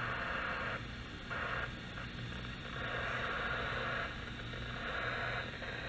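Static hiss from a handheld FM radio's speaker, rising and dropping in level several times as the satellite downlink fades in and out.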